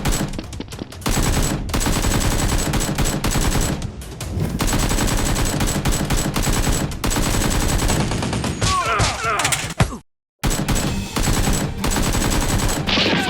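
Rapid gunfire sound effects: dense runs of shots like automatic fire. The sound cuts out completely for a moment about ten seconds in.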